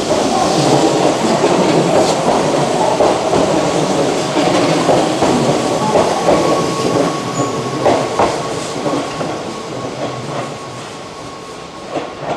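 Keihan electric commuter train running out past the platform, its wheels rumbling and clicking over rail joints. The sound fades over the last few seconds as the last cars draw away.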